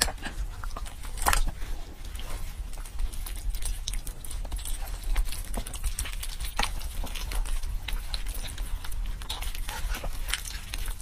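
Braised pork knuckle being pulled apart by gloved hands: wet, sticky tearing and squelching of skin and meat, with irregular sharp smacking clicks.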